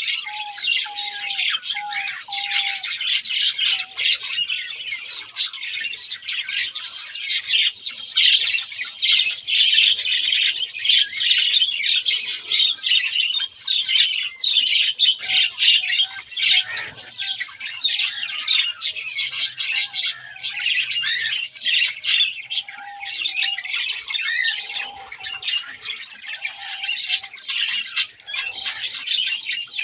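Many aviary birds chirping and squawking together in a dense, continuous chatter. A short run of lower, even notes comes near the start and again about two-thirds of the way through.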